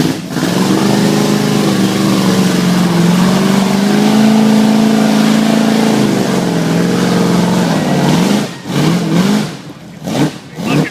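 Off-road vehicle engine revving hard, its pitch rising and falling, then dropping off and coming and going in short surges near the end.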